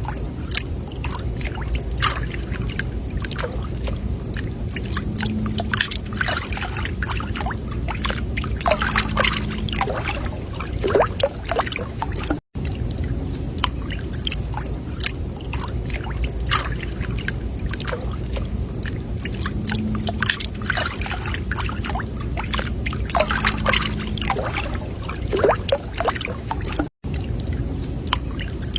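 Water splashing and sloshing from swimming strokes, irregular splashes over a steady low rumble of water, cutting out very briefly twice.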